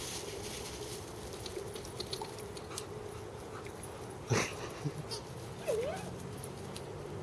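A dog at play gives one short, sharp yelp about four seconds in, and a moment later a brief whine that dips and then rises in pitch.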